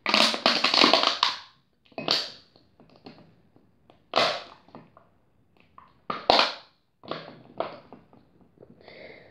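Thin empty plastic water bottle crackling as a hand squeezes and releases it to suck a raw egg yolk up from a plate. A long crackle comes at the start, then several shorter crunches a second or two apart, with one sharp click about six seconds in.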